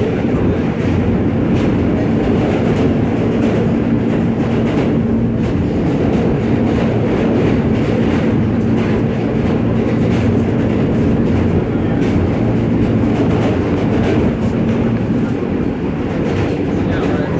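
New York City subway train running: a loud, steady rumble with a constant hum and scattered short clicks from the rails.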